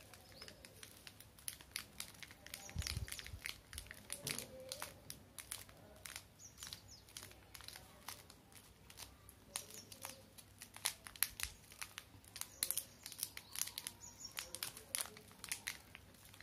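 Plastic wrappers of Cadbury Dairy Milk chocolate bars crinkling and crackling in fingers as the bars are picked up and handled, a dense run of sharp crinkles, with a soft low knock about three seconds in.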